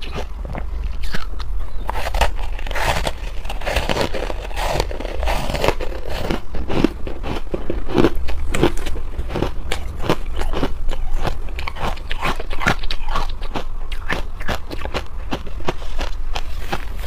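Close-miked biting and chewing of ice: a rapid, irregular run of sharp crunches and cracks as the ice breaks between the teeth, over a steady low hum.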